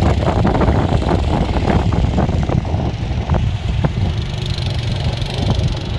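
ATV quad engine running under throttle as the quad spins and slides on loose dirt, with scattered short ticks through it.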